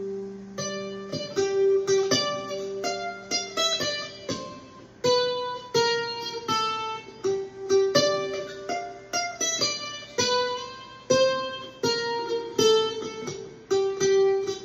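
Loar LM-310F mandolin, amplified through its pickup and an L.R. Baggs Para EQ, playing a jig rhythm: a quick run of picked notes that ring on and overlap.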